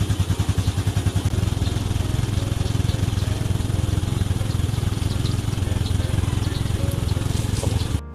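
Yamaha Sight's single-cylinder four-stroke engine idling steadily with an even, rapid pulse, just after starting, while it warms up so the oil will drain faster. The sound cuts off abruptly near the end.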